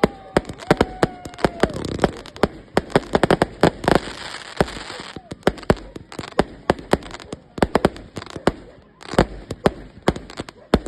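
Fireworks and firecrackers going off in rapid, irregular succession, several sharp bangs a second. A thin whistle falls in pitch over the first couple of seconds, and a hissing crackle rises around four to five seconds in.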